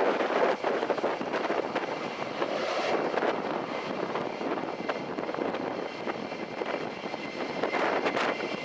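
Eurofighter Typhoon's twin turbofan jet engines running as the jet rolls along the runway, a steady rushing roar without clear tones.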